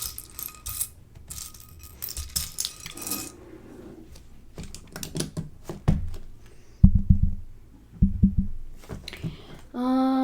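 Loose plastic Lego pieces clattering as they are rummaged through, then a few separate clicks and knocks as pieces are picked up and set down. A short hummed voice sound near the end.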